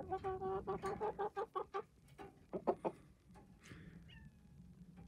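Rooster clucking close at hand: a quick run of short clucks for about two seconds, then a few louder single clucks a moment later.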